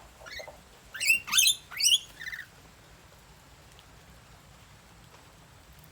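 A pet bird calling: a faint rising note, then three loud, sharp calls that sweep steeply upward in pitch within about a second, followed by a short rattling note.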